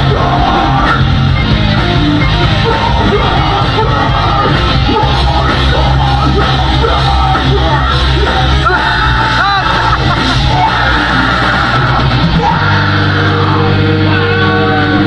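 Live metalcore band playing loud: distorted guitars, bass and drums with shouted vocals. About twelve seconds in, the low end changes to long held notes.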